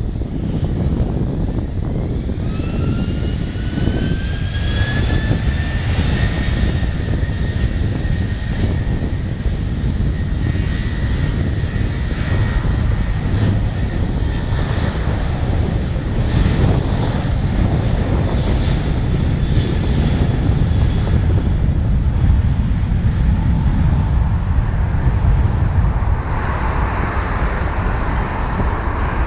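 Boeing 737-700's twin CFM56-7B turbofans spooling up to takeoff thrust at the start of the takeoff roll: a whine rises in pitch over a loud low rumble, then holds steady. The rumble thins near the end as the jet moves away down the runway.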